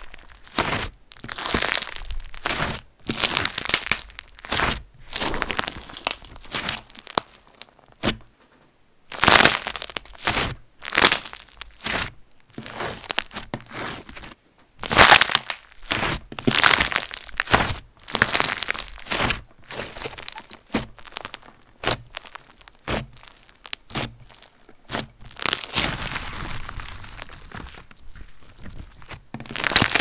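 Hands kneading, folding and squeezing a glossy slime flecked with gold bits, giving loud, irregular crackling and popping in quick bursts. It goes quieter and steadier for a few seconds near the end.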